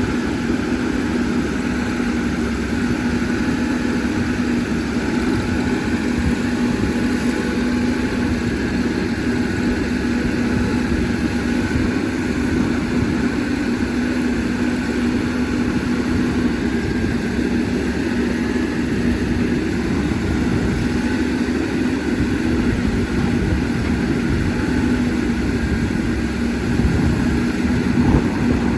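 CAT 320D excavator's diesel engine running steadily, with a constant hum and no breaks.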